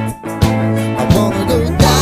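Background pop music with a steady beat, about three beats in two seconds, over held instrumental notes.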